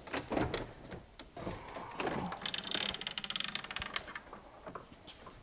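Old plastic-tanked radiator from a 2007 BMW 328i being lifted up out of its mounts in the engine bay: light plastic knocks and clicks, with a stretch of quick scraping rattles around the middle.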